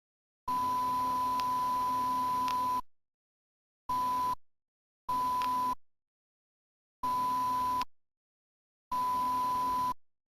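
A steady, high-pitched pure beep tone sounding five times with silent gaps between. The first beep lasts about two seconds and the rest are under a second each. A faint hiss and low hum come and go with each beep.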